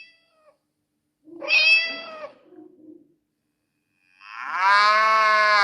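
Sagem MY-750c mobile phone playing an animal-sound ringtone: a short cat meow about a second and a half in, then a longer, louder drawn-out animal call near the end.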